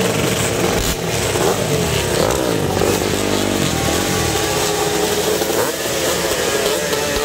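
A row of vintage two-stroke motocross bikes running together, several engines at once, their pitches wavering up and down as riders blip the throttles.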